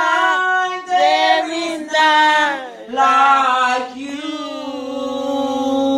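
A woman's voice singing a worship song unaccompanied into a microphone, in short drawn-out phrases and then a long held note from about three seconds in.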